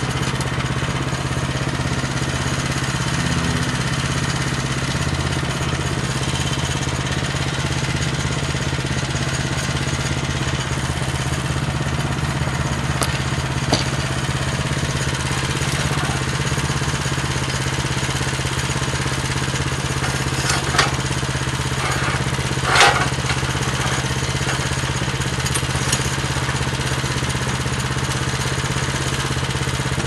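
9.5 hp Kohler single-cylinder gasoline engine on a Woodland Mills HM126 portable bandsaw mill, running steadily while the log is set and clamped rather than sawn. A few short, sharp metal knocks from handling the log and clamp sound over it, the loudest about three-quarters of the way through.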